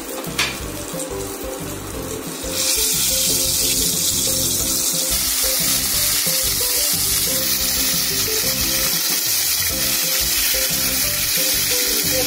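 Stuffed pointed gourds frying in hot mustard oil in a stainless steel pan. The sizzle rises suddenly about two and a half seconds in as the gourds go into the oil, then carries on as a steady loud hiss.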